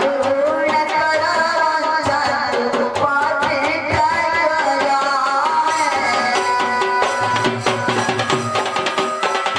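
Live folk music: a two-headed barrel drum (dhol) played in a quick, steady rhythm under a wavering melody line. In the second half the drum strokes come to the fore.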